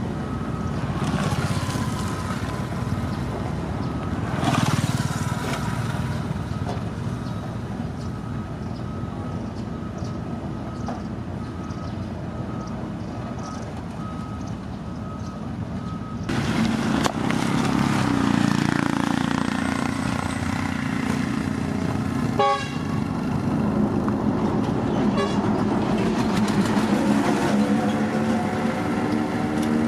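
Engines of heavy road-construction machinery (a motor grader and road roller) running steadily. The sound changes abruptly about halfway through and becomes louder, and the engine pitch rises near the end as it revs up.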